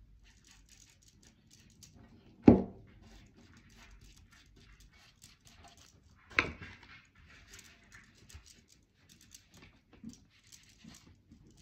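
Faint scratchy rustling of a cloth rag being dabbed and rubbed over a painted vase, with two sharp knocks about two and a half and six and a half seconds in, the first much the louder.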